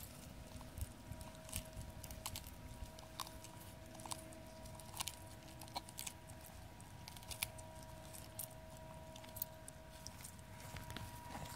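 Galápagos giant tortoises biting and chewing cactus pads: irregular crunching clicks, some louder than others, over a faint steady tone.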